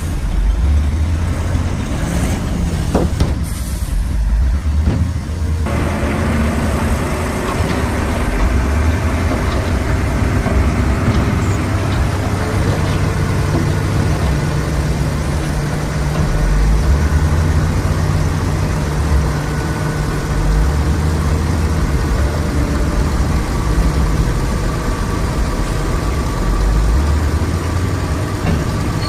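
Diesel engine of a Shantui bulldozer running steadily, its low pitch stepping up and down as it works.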